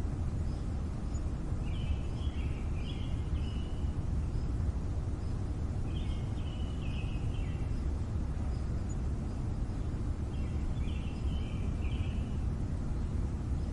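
Steady low city rumble with a bird calling in short phrases of several quick notes, repeated about every four seconds.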